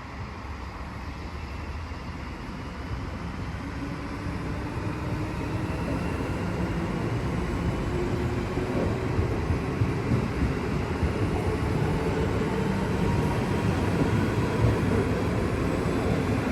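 Train approaching through the station, its running noise growing steadily louder, with a few faint steady tones rising out of the rumble partway through.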